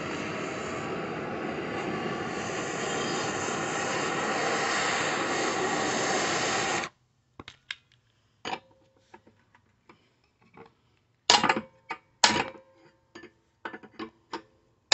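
Handheld torch flame running with a steady rush as it heats a pulley on a Briggs & Stratton engine's crankshaft, cutting off abruptly about seven seconds in. Then scattered metal clinks and knocks, some ringing briefly, as metal tools work at the hot pulley.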